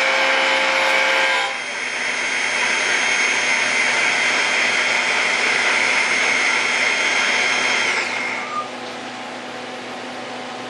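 CNC lathe thread milling stainless steel pipe: the live-tool spindle whines at high speed over the hiss of cutting and coolant spray. The sound changes and dips slightly about one and a half seconds in. About eight seconds in the whine falls in pitch as the spindle winds down, leaving a quieter steady machine hum.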